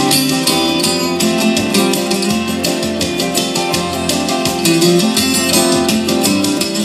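Acoustic guitar strummed in a steady rhythm with no singing: the instrumental close of a country song.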